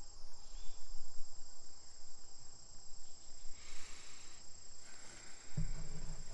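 A chorus of crickets and other insects keeping up a steady, high-pitched drone, with a short low hum near the end.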